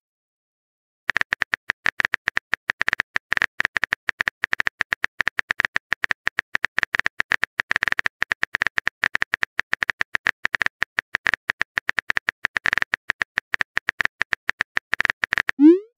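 Texting-app keyboard clicks, several a second, from about a second in until just before the end: the typing sound effect as a message is typed out. Near the end comes a short rising pop, the start of the message-sent sound.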